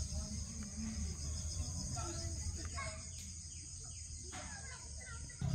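A steady, pulsing high-pitched insect chorus, with several short bird chirps around the middle, over a low rumble.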